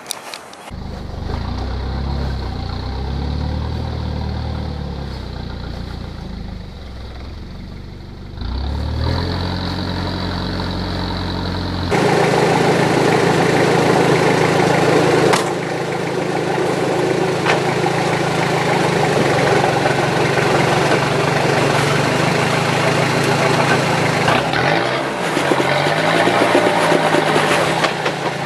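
Toyota Hilux's 3.0 turbo diesel engine running at low revs while the 4x4 crawls. About twelve seconds in it turns louder and rougher as the truck works its way up a rock ledge, with the revs dipping and rising again near the end.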